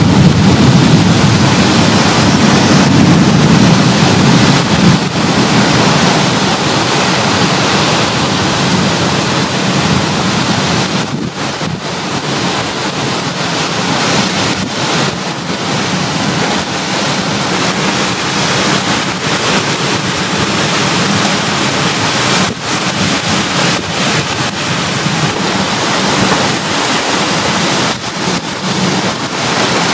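Strong thunderstorm wind blowing in gusts and buffeting the microphone. It is loudest over the first five seconds and eases a little about eleven seconds in.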